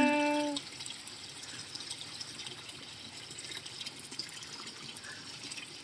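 Steady running water trickling and splashing, after a held voice trails off in the first half-second.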